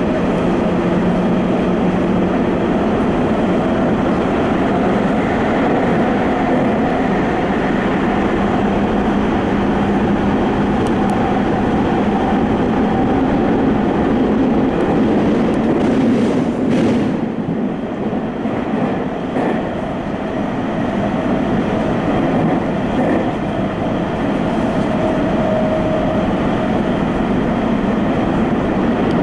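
Tokyo Metro Fukutoshin Line subway train running at speed through its underground tunnel, heard from inside the rear cab: a steady, loud running rumble with faint steady whining tones, easing slightly about two-thirds of the way through.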